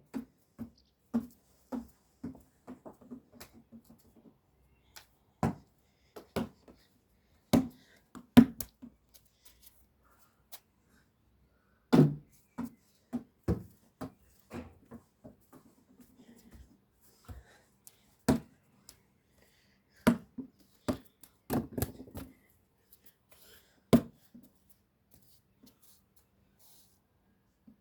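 A basketball bouncing on hard ground: single thumps a second or more apart. Twice, a run of quickening, fading bounces as the ball settles.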